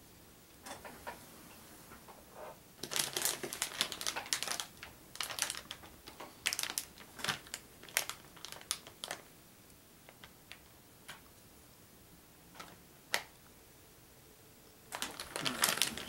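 Irregular clicks and crinkling rustles of computer parts and their plastic packaging being handled. The clicks come in quick clusters for several seconds, thin out, then pick up again near the end.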